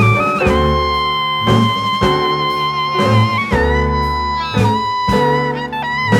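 Background music: a sustained melody over a steady beat with deep bass hits about once a second.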